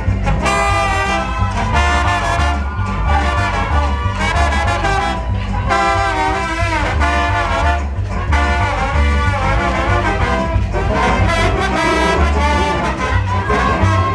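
Live dance band playing carnival music, with brass horn lines over a steady pulsing bass beat.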